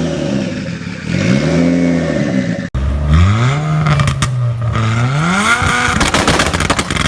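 Tuned car engines revving hard: one rises and falls twice. Then a second engine revs up and holds steady before a rapid run of exhaust pops and crackles near the end, typical of a two-step launch limiter or anti-lag system.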